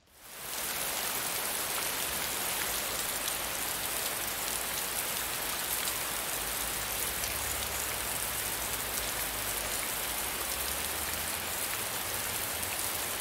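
Steady rain falling on wet pavement and puddles, a dense even hiss that fades in over the first second.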